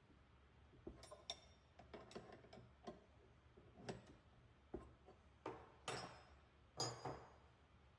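Faint, irregular metallic clicks and clinks, about a dozen, from hand tools and metal coolant fittings being handled on the miner. The last three, near the end, are louder and ring briefly.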